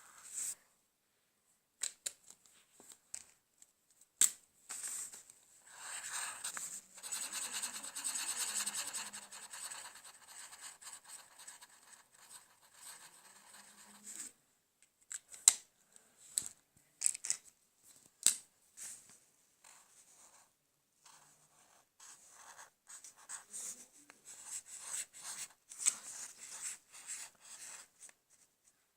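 Felt-tip marker drawing and colouring on paper: irregular scratchy strokes, some long and steady, many short and quick, with a few sharp taps among them.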